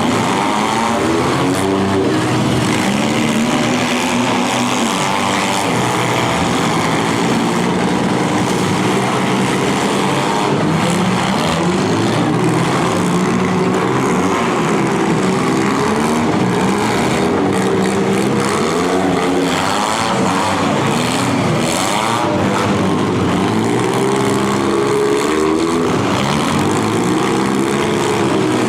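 Several demolition derby cars' engines revving hard at once, their pitches rising and falling over each other, with a few sharp crashes of cars hitting each other partway through.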